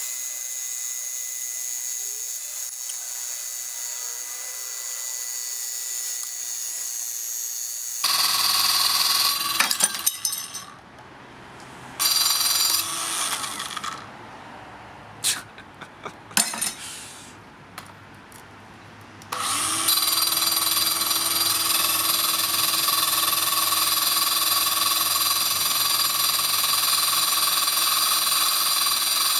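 Makita CC301D 12-volt cordless glass cutter saw cutting a sheet of glass, a high, steady whine. It runs quieter at first, gets louder about 8 s in, stops and starts several times through the middle, then runs steadily to the end.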